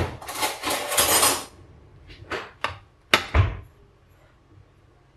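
Breadcrumbs being poured into a plastic measuring container: a rustling hiss for about a second and a half, then a few light clicks and a knock with a dull thump as the container is handled.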